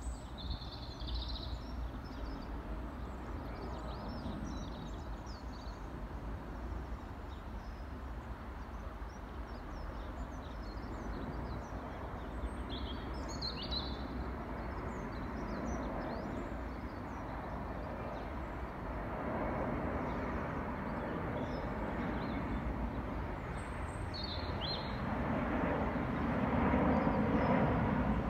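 Jet engine noise from an Airbus A350-941 airliner on final approach, a steady rumble that grows louder near the end as the aircraft comes closer overhead. Small birds chirp briefly a few times.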